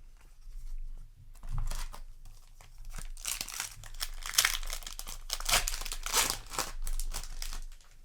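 Plastic packaging being handled, crinkling and rustling in a quick, uneven run that grows busier about three seconds in and stops just before the end.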